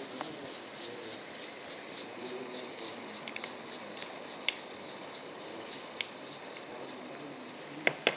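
Onion-tomato masala sizzling quietly in a karahi while chili powder is spooned in, with a few sharp metal clinks of the spoon, the loudest two close together near the end.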